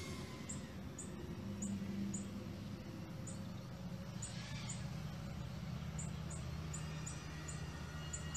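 Racing quadcopter's brushless motors whining in flight over a steady low hum, the pitch rising and falling with throttle; a steady high motor whine sets in near the end.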